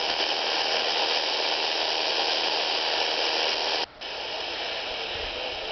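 Portable FM radio receiver hissing with static while tuned between stations, as the dial is turned in search of a station. The hiss cuts out for a moment about four seconds in, then comes back a little quieter.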